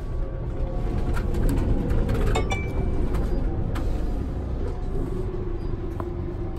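Low, steady rumble of a Scania Interlink MD bus heard from inside the passenger cabin, with a few light clicks and rattles about two and a half seconds in and single clicks later on.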